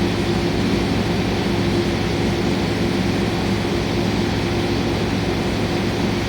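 CNC milling machine profile-cutting Elmax powder stainless steel: a steady machining sound with a constant hum from the spindle and cutter.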